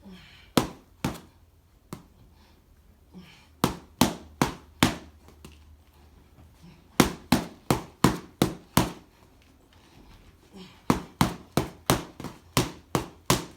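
Repeated sharp thuds from a workout exercise in a small room. They come in runs of about three a second: two near the start, four at about four seconds, seven from about seven seconds, and eight from about eleven seconds.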